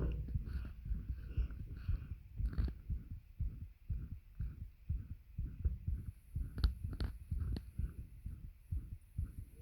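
Human heartbeat heard close up through the chest, a steady run of low thumps. A few sharp clicks come about seven seconds in.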